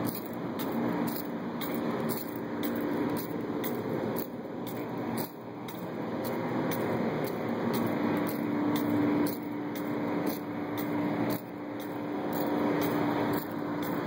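Footsteps on a concrete parking-garage floor, about two a second, over a steady low rumbling drone with a faint hum.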